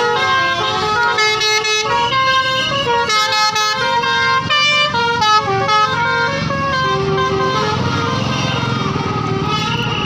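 Tour bus 'telolet' multi-tone air horn playing a quick tune of stepped notes, with the bus engine running underneath.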